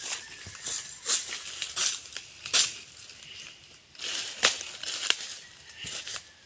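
Leaves and branches rustling and crackling in irregular bursts as people push through dense undergrowth on foot.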